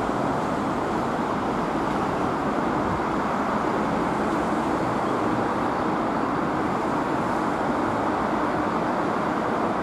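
Steady urban background noise: an even rumble and hiss that holds at one level, with no distinct events.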